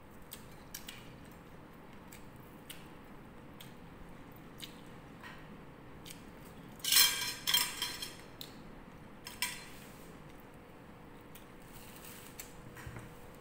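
Table sounds of a meal: utensils and food knocking and scraping on plates, with scattered light clicks, a louder cluster of clatter about seven seconds in and another short one about two seconds later.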